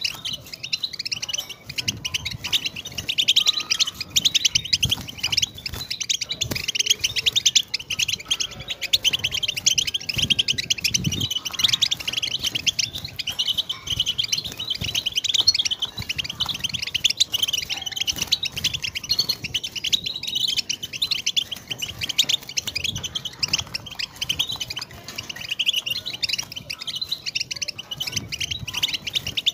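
European goldfinch singing a long, unbroken run of rapid twittering, tinkling notes.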